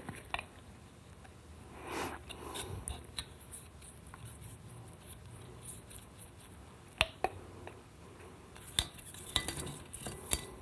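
Lube being brushed onto the inside of a TH400 clutch drum: soft brushing with scattered light metallic taps and clicks as the applicator touches the steel drum. The clearest taps come about seven and nine seconds in.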